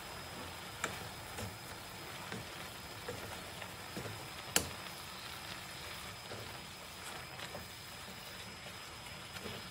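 Kitchen sounds: a steady hiss with scattered light clicks and knocks, the sharpest about four and a half seconds in.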